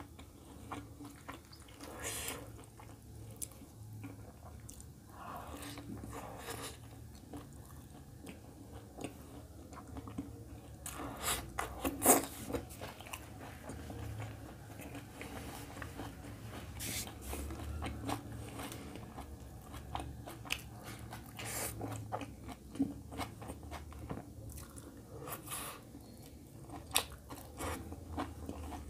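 Close-up sounds of a man chewing mouthfuls of roti and egg curry, with wet lip smacks and small mouth clicks, and one sharp click about twelve seconds in.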